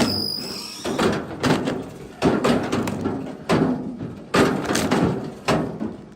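Split firewood chunks being thrown onto a pile, one hard wooden knock after another, about eight in all at roughly one a second.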